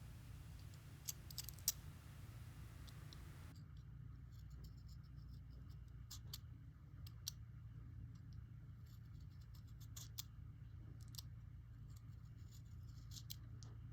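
A utility knife shaving small amounts of wood from around a pencil's core. It makes faint, irregular little clicks and scrapes, with the two sharpest clicks coming about a second and a half second apart near the start.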